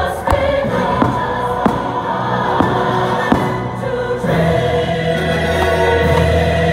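Fireworks-show soundtrack: a choir singing over orchestral music, with a few sharp firework bangs in the first half.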